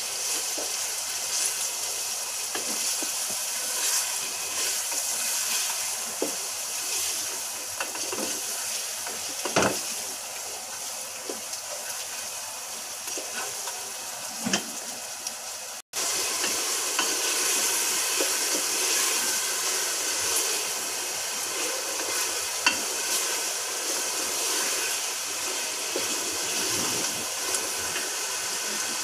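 Meat and spice masala sizzling in hot oil in an aluminium pressure cooker, with a wooden spoon stirring and now and then knocking and scraping against the pot. The sound cuts out for an instant just past halfway.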